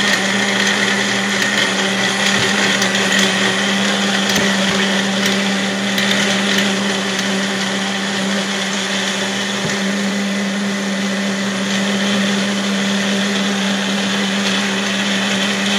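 Magic Bullet personal blender running steadily as it blends a smoothie, an even motor hum that does not let up.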